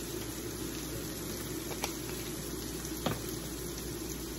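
Steak sizzling steadily as it fries in a pan, with two brief clicks about two and three seconds in.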